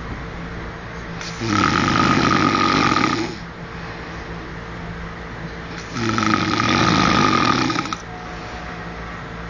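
A man snoring in his sleep: two long snores about four and a half seconds apart, each lasting about two seconds, with quieter breathing between them.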